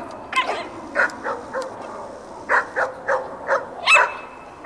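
Dog barking: about a dozen short, sharp barks in irregular bursts, the loudest near the end.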